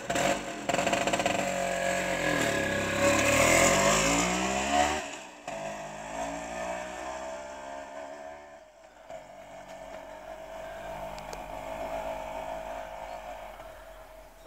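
Vespa T5 scooter's two-stroke single-cylinder engine revving as it pulls away, its pitch rising for about five seconds. It then drops sharply and carries on lower and steadier, fading as the scooter rides off.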